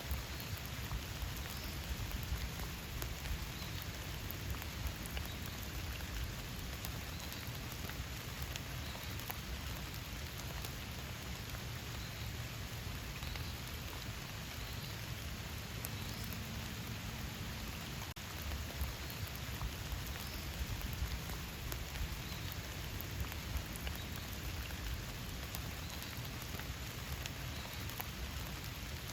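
Steady rain falling in a forest, with many individual drops ticking close by over an even hiss.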